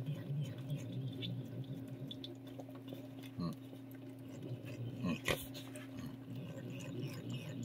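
Cat licking and smacking a lickable paste treat (Ciao Churu) from a churu spoon: a string of small wet tongue clicks and smacks over a steady low hum.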